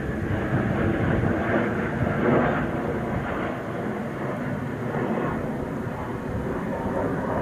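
Low rumble of an express train approaching from far down the line, with wind buffeting the microphone.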